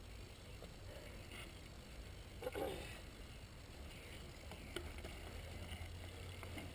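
Faint open-air background: a steady low rumble, with a brief distant call about two and a half seconds in and a small click near the end.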